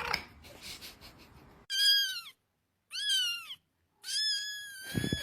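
A cat meowing three times in high-pitched calls, the first two short and rising then falling, the third longer and held nearly level.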